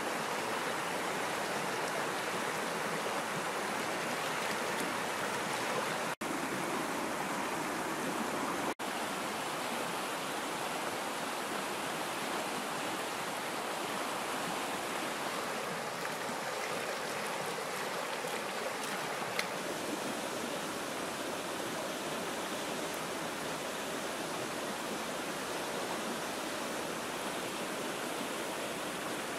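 Fast-flowing river rapids rushing steadily, a continuous roar of white water, broken by two split-second gaps a few seconds apart.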